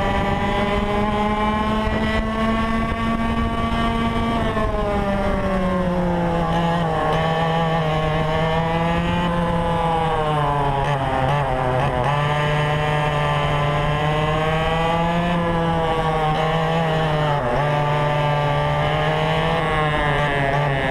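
Yamaha KT100 two-stroke kart engine at race pace, heard from on board, its pitch dropping and climbing again several times through the corners. Wind noise on the microphone runs underneath.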